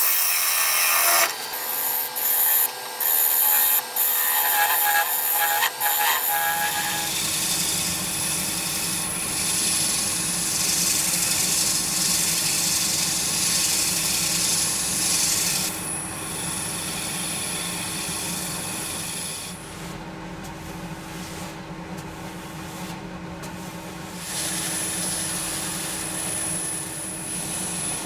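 A wood lathe spins a wooden plate while a gouge cuts into it, a loud scraping cut broken by short pauses, for about the first six seconds. After that comes the lathe motor's steady hum and sandpaper rubbing on the spinning plate, growing fainter later on.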